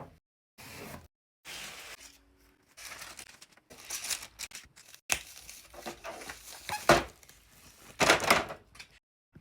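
TV packaging being unpacked: cardboard and plastic wrap rustling, crinkling and tearing in short snippets that cut off abruptly, with a few sharp knocks.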